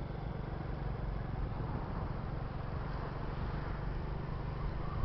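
Engine and road noise of a vehicle being driven, heard from on board: a steady low hum.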